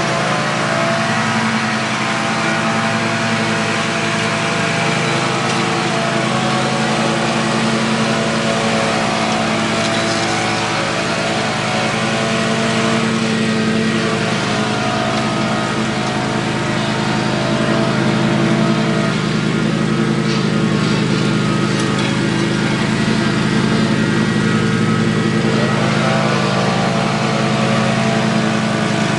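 Stand-on commercial zero-turn mower running steadily as it mows thick, overgrown grass. The engine note shifts briefly twice, about halfway through and again near the end.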